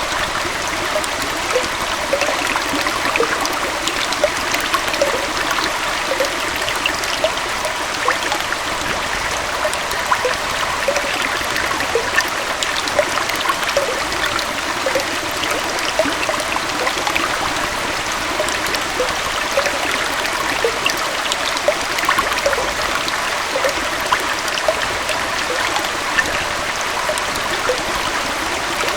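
Gentle forest waterfall and stream flowing steadily: a continuous rush of falling water with many small bubbling gurgles.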